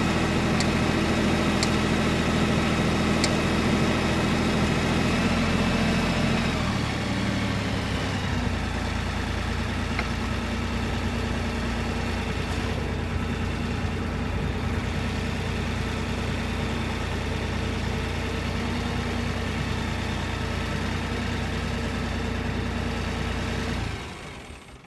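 Kioti NX4510 compact tractor's diesel engine running at raised revs, then throttling down to a steady idle about a third of the way in, and shutting off near the end.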